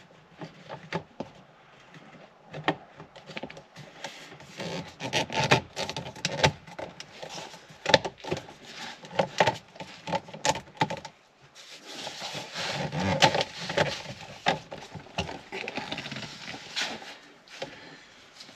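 A steering-column component being worked by hand to snap into place: irregular clicks, taps and scraping, with a denser spell of rubbing and scraping about two-thirds of the way through as the part is finagled into its clips.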